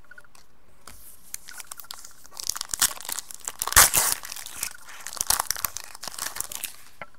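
The foil wrapper of a 2015 Panini Contenders football card pack being torn open by hand and crinkled. A run of crackling tears and rustles starts about a second and a half in, is loudest near the middle and fades near the end.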